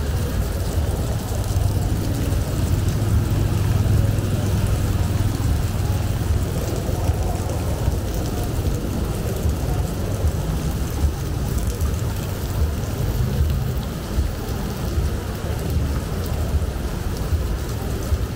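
Steady rain falling, an even hiss over a constant deep rumble, with a few brief louder spatters.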